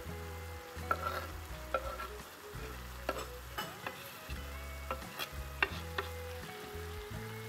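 Diced bell peppers scraped off a wooden cutting board with a knife into a pan of shrimp frying, with a steady sizzle and a handful of sharp knocks and scrapes of the knife against the board and pan.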